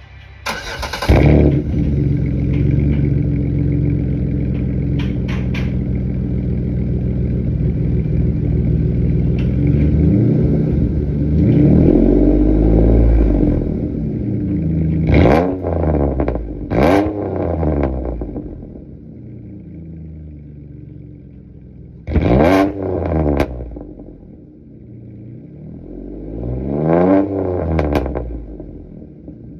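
Pontiac G6 GT's 3.5-litre V6 running through its exhaust: it idles steadily, then is revved, first in a slower climb and then in four sharp blips that rise and fall.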